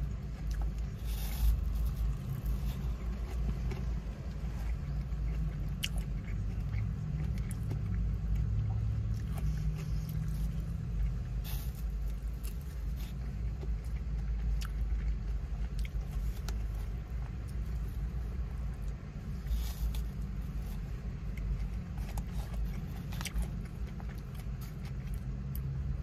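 Close-up chewing and mouth sounds while eating, with scattered light clicks of a plastic fork against a styrofoam takeout box, over a steady low rumble.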